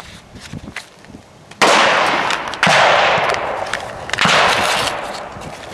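Paper cartridge packet being torn and cut open by hand close to the microphone: three loud rustling, tearing bursts, each dying away over about a second.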